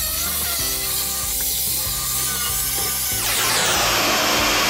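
Corded power saw cutting through pine tongue-and-groove wall planks, trimming the uneven board ends flush along a marked line. About three seconds in, the saw's pitch drops as it works through the cut.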